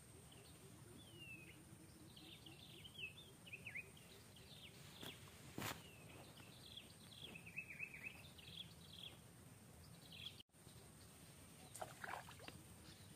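Faint outdoor background with small birds chirping in quick twittering runs, and a single soft click about halfway through.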